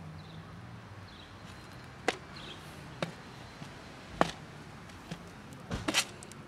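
Several sharp clicks and knocks from a clear plastic food box being handled on concrete pavement. The loudest come about four seconds in and near the end, where a low knock and a quick cluster of clicks sound as the box is pushed along and set down.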